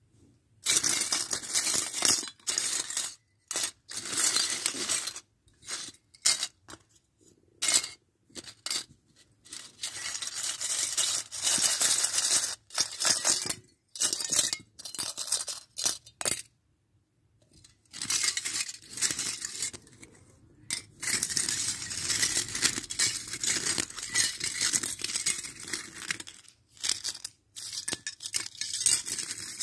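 Foil wrappers on chocolate coins crinkling and tearing as they are peeled and crumpled by hand, in irregular bursts with short pauses between. Now and then the foil-wrapped coins clink against a clear plastic tub.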